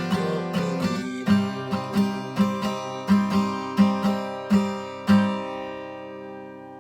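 Acoustic guitar strummed through the closing bars of a song, with a last chord struck about five seconds in and left to ring and fade out.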